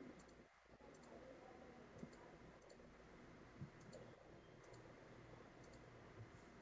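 Near silence with faint computer mouse clicks, short paired ticks every second or so, over low room hum.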